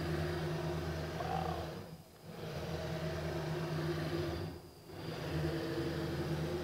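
xArm 7 seven-axis robot arm's joint servo motors and harmonic-drive gearing whirring with a steady hum as the arm moves through a demo motion. The whir comes in three moves, dipping briefly about two seconds in and again just under five seconds in.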